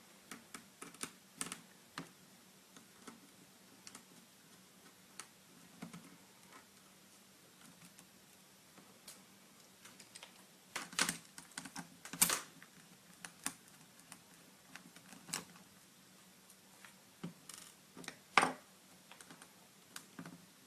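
Scattered light clicks and taps of a mini screwdriver and small screws on a netbook's plastic screen housing, as the screws holding the LCD frame are taken out and set down. A few louder knocks come in the second half.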